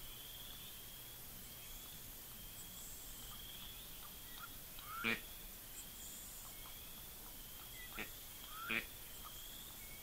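Wetland wildlife ambience: a steady high-pitched chirring trill, like insects in the reeds, with three short sharp calls that sweep up in pitch, about five, eight and nine seconds in.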